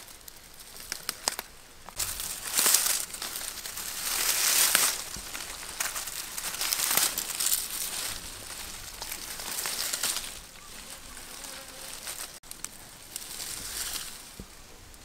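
Hands pulling and snapping leafy water-spinach vines and rustling through dry grass, in irregular bursts of crackly rustling, the loudest a few seconds in.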